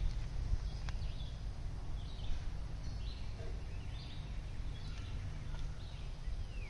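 Outdoor ambience: birds call with short falling chirps several times over a steady low rumble, with one sharp click about a second in.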